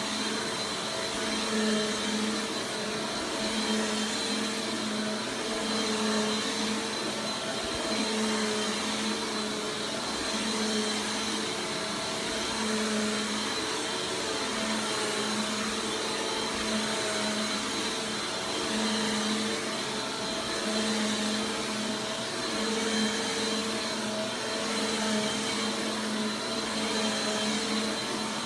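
Bissell PowerForce Compact Turbo upright vacuum cleaner running steadily. Its motor gives a continuous whirring hum that wavers slightly in level.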